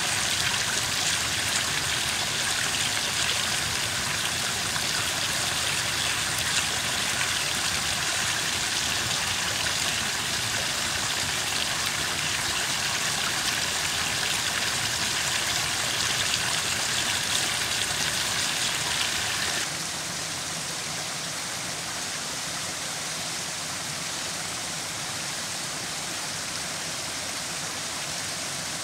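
Small woodland waterfall and stream running steadily, a dense rushing hiss of falling water that becomes a little quieter about two-thirds of the way through.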